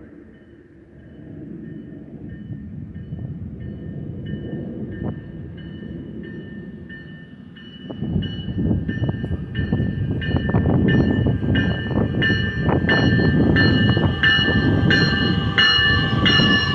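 Metra Electric bilevel electric train approaching, its bell ringing about one and a half times a second and growing steadily louder. About eight seconds in, the low rumble of wheels on the rails rises sharply and keeps building as the train draws close.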